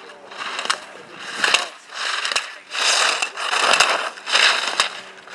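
Slalom skis carving and scraping across hard-packed snow, a hissing swell with each turn about once a second. A few sharp clacks are heard among the turns.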